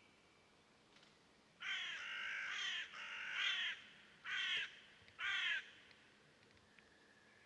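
A bird giving a series of harsh caws, a long call and then about three shorter ones, from about a second and a half in to just before the end.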